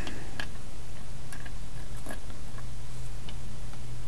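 Computer keyboard: a few scattered light key clicks over a steady low hum.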